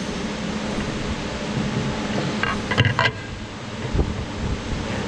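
Steady workshop hum. A few sharp metal clinks come about two and a half to three seconds in, and a dull thump about four seconds in, as the Toyota Prius transaxle's aluminium housing cover is handled and set against its case.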